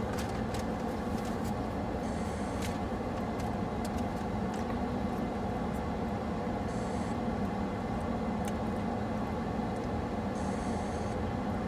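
Steady hum of a car idling, heard inside the cabin, with a few faint clicks and three short high buzzes.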